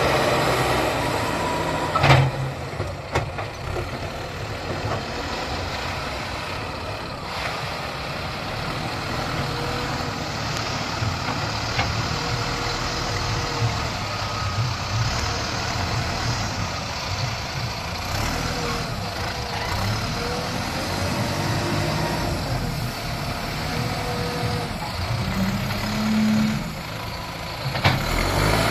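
Heavy diesel machinery, a JCB backhoe loader working alongside a tractor, running steadily while loading soil, with one loud knock about two seconds in.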